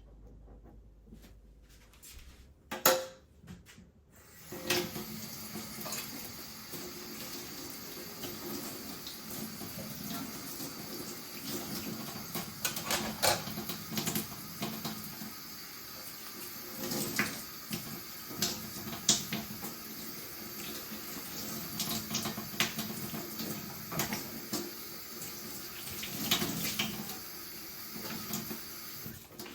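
Kitchen tap turned on after a single knock, then water running steadily into a sink, with dishes clinking now and then as they are washed.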